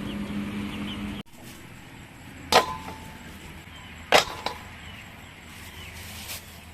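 A steady low hum that cuts off about a second in, then two sharp strikes about a second and a half apart, each with a brief metallic ring.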